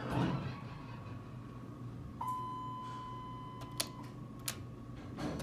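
Dover elevator sounds: a steady high-pitched tone begins abruptly a little over two seconds in and lasts about two seconds, with several sharp clicks in the second half.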